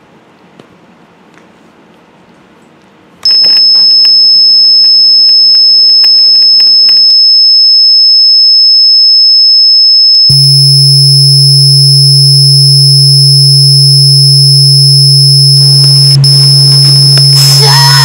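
Faint room noise with a few small clicks, then about three seconds in a very loud, steady, high-pitched electronic beep that stops about seven seconds in. After three seconds of silence a very loud, harsh, distorted electronic tone with a deep hum under it starts and holds. A noisy, wavering layer joins it over the last couple of seconds.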